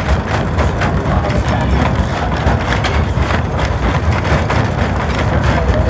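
La Trochita narrow-gauge train running: a steady low rumble of the carriage on the rails with a constant clatter of knocks and rattles.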